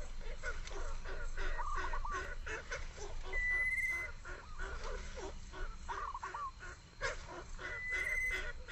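Birds calling: rapid short chirps throughout, a held whistled note twice, about four and a half seconds apart, and short runs of falling calls in between.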